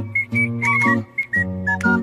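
Background music with a bouncing beat: short low bass notes and chords under a high melody of quick, whistle-like notes.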